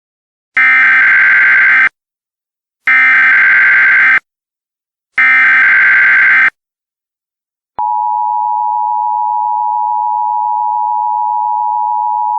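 Emergency Alert System tones: three short bursts of shrill, buzzing digital data (the SAME header), each about a second and a half long with short gaps between them. About eight seconds in, the steady two-tone EAS attention signal starts and holds.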